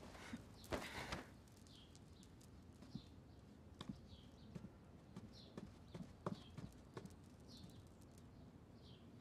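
Faint, slow footsteps on a wooden floor, scattered soft knocks and taps, with a brief rustle of cloth about a second in. Small high chirps fall in pitch every second or so behind them.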